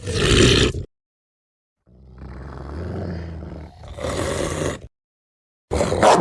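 Film werewolf growls and roars, played as separate clips with dead silence between them. A short roar comes first. After a pause, a low rumbling growl swells into a louder roar, and another short roar starts near the end.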